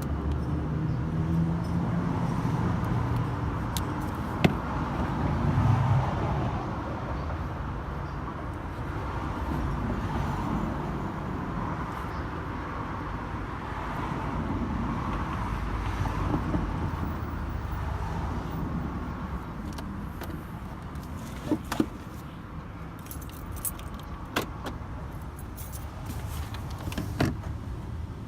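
Door lock actuators of a 2012 Nissan Rogue clicking a few times as the locks are worked, over a steady low rumble. The factory actuators are the ones being shown for making a really loud noise.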